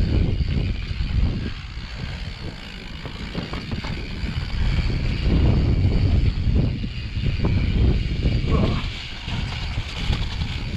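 Mountain bike descending a dirt trail: wind rumbling on the microphone over tyre noise, with the bike rattling and knocking over bumps.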